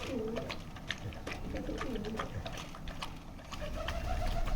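A Rottweiler eating rice, with quick clicks of chewing and licking throughout. A low cooing call falls in pitch twice in the first half.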